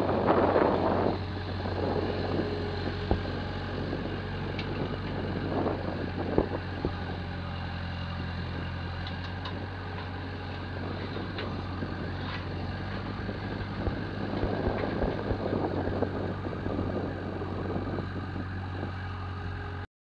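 Gehl skid steer's engine running steadily at a low hum, louder near the start and again about three-quarters of the way through, with wind buffeting the microphone near the start. The sound stops abruptly just before the end.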